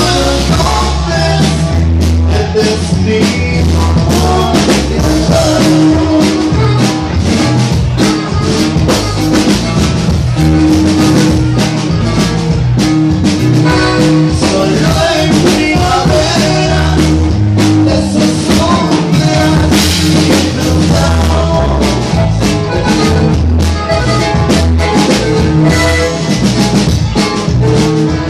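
Live norteño band music, loud and continuous, with a drum kit and electric bass under held melody notes.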